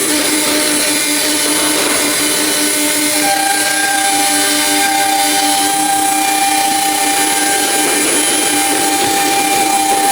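1325 ATC CNC router running: a loud, steady machine whine over a constant hiss. A second, higher steady tone joins about three seconds in.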